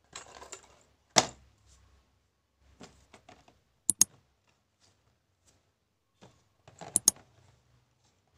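Small cardboard toy boxes being handled and set down on a plastic baseplate: scattered sharp taps and knocks, with a quick double click about four seconds in and another about seven seconds in, and light rustling near the start.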